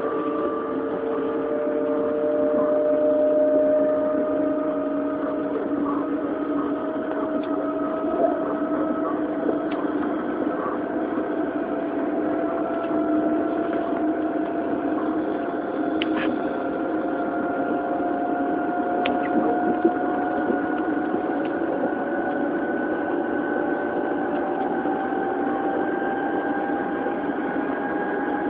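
Odakyu 1000 series electric train running, heard aboard motor car DeHa 1101 on a mobile phone. The Mitsubishi GTO-VVVF inverter and traction motors give a steady whine of several tones that climb slowly in pitch as the train gains speed, over a rumble of wheels on rail with a few faint clicks.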